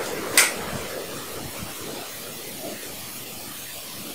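Steady background hiss with one brief sharp noise about half a second in.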